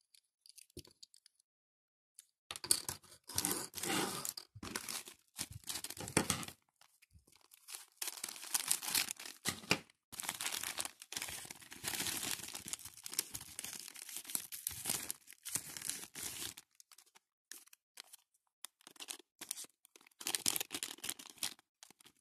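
Plastic and paper packaging crinkling and tearing as it is handled and opened. It comes in bursts from about two seconds in, with a long dense stretch in the middle, then scattered short crinkles and a louder burst near the end.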